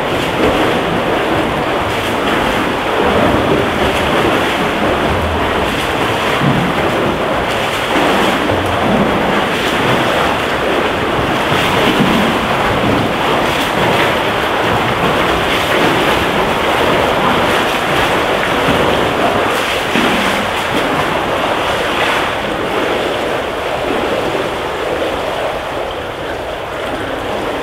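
Steady wash of splashing water from swimmers doing laps in an indoor pool, easing off a little near the end as they finish.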